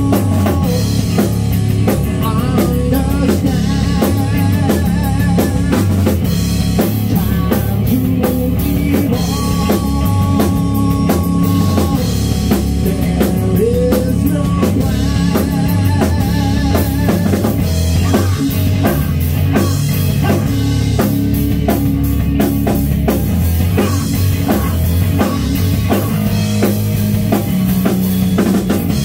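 Live rock band playing: a drum kit, an electric bass and an electric guitar, with a male singer on the microphone.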